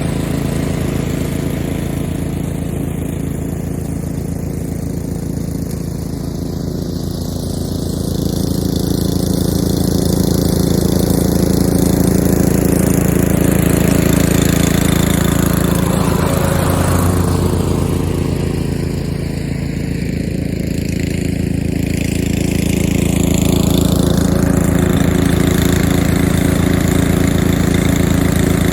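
Two-blade walk-behind mower's engine running steadily with the blades engaged, the loudness easing and swelling a little twice. It runs evenly with no knock or vibration from the freshly repaired blade spindle; nothing sounds out of whack.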